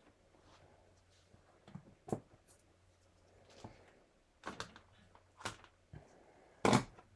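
Craft tools and objects being handled on a tabletop: a few short light knocks and clicks, the loudest near the end, over a faint low hum.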